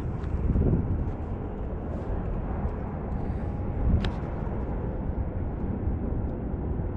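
Steady low outdoor rumble, with one sharp click about four seconds in.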